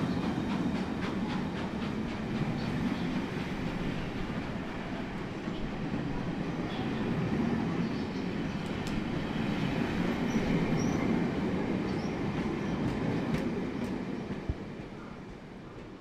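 Steam train pulling out, its wheels rolling on the rails with a steady low noise. There are a few faint high squeaks about ten seconds in, and the sound fades away near the end.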